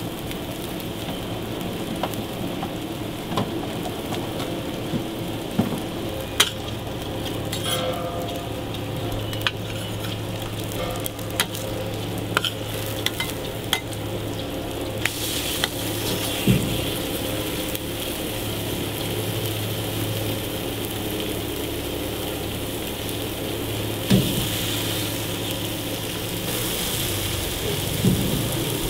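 Burger patties and eggs sizzling on a flat steel griddle, with scattered sharp clicks and scrapes of a metal spatula against the griddle. The sizzle grows louder about halfway through.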